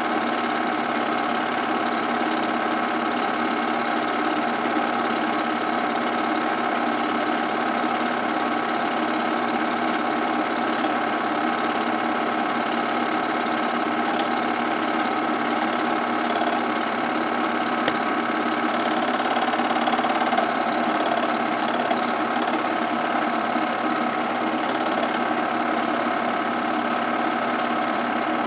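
Movie projector running: a steady mechanical whirr with a fixed set of tones that does not change.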